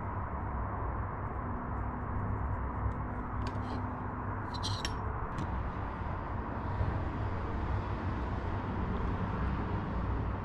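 Steady low background rumble of a workshop, with a few light clicks and ticks about four to five seconds in as a digital caliper and marker are handled on aluminium brackets.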